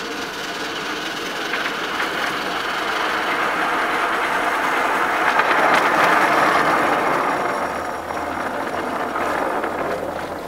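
Maxitrak Alice Quarry Hunslet miniature steam locomotive running along the track with a rider behind, its wheels rolling on the rails. The sound grows as it approaches, is loudest about six seconds in, then eases.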